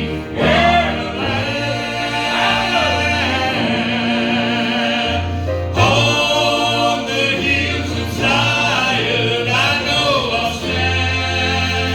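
Gospel group singing in harmony over instrumental accompaniment, with a steady bass line moving note to note underneath the voices.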